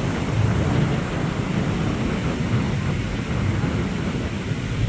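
Surf breaking steadily on a beach, mixed with wind buffeting the microphone, heard as a constant low rumble.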